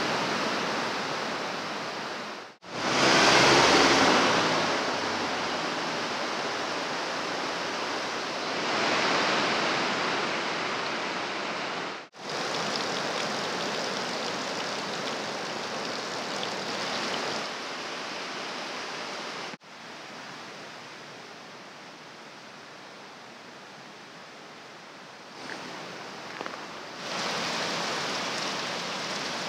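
Running water: a steady rushing that cuts off and changes level abruptly three times. Near the end, spring water pours from a spout into a wooden trough.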